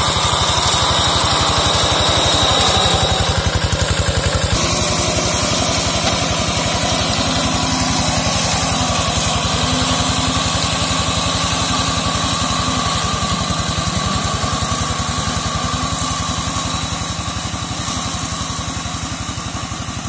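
Walk-behind two-wheel hand tractor with a slasher mower deck, its engine running steadily with a fast, even chugging as it mows through undergrowth. The sound shifts slightly about a quarter of the way in, then grows gradually fainter near the end as the machine moves away.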